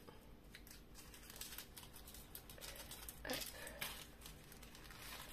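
Small clear plastic bag of seashells faintly crinkling and rustling as fingers pick shells out of it, busiest about three to four seconds in.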